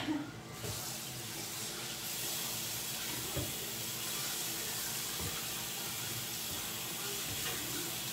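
Kitchen sink tap running steadily, water splashing into the sink, starting about half a second in, with a few faint knocks.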